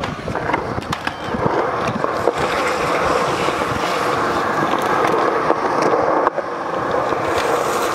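Skateboard wheels rolling steadily over smooth concrete, carrying a metal frying pan used as the deck, a continuous rolling rumble through the run.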